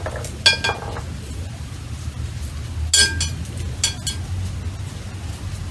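Metal spoon clinking against a glass bowl: a couple of ringing clinks near the start, another about 3 seconds in and a fainter one about a second later, over a steady low hum.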